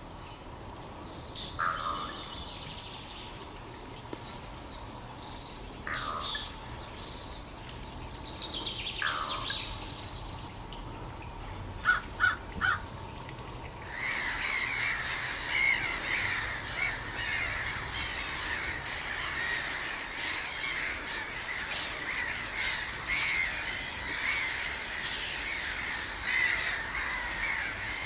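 Harsh, crow-like bird calls: a few falling squawks, three sharp clicks about twelve seconds in, then a long stretch of continuous raspy calling from about halfway on.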